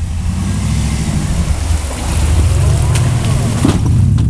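Willys jeep engine working under load as the jeep drives through a water-filled pit, its note climbing about halfway through, with water sloshing and splashing around the wheels.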